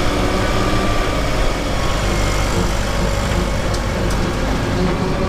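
Ford compact tractor's diesel engine running steadily under load while it pulls a rotary cutter through grass, the cutter's blades spinning. A few sharp ticks near the end, as the mower strikes debris.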